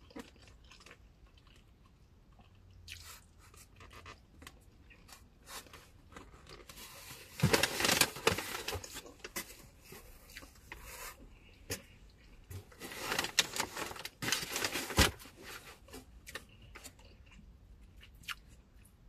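A person chewing and eating food close to the microphone, with small clicks throughout and two louder crunchy stretches, about seven and thirteen seconds in.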